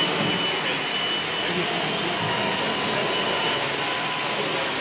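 Steady machinery noise of a factory floor: an even rushing hiss with a faint high whine running through it.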